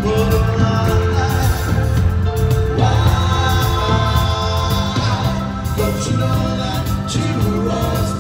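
Live band playing, with a man singing long held notes that slide between pitches over bass and drums.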